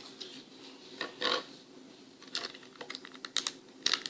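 Plastic Lego bricks clicking and clattering as they are handled and pressed together, a scatter of sharp clicks that come quicker over the last couple of seconds.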